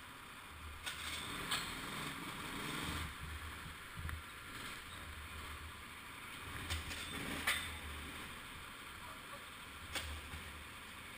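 Hall noise of an indoor go-kart track while the karts sit stationary, with a few sharp clicks and knocks scattered through it; the loudest knock comes about seven and a half seconds in.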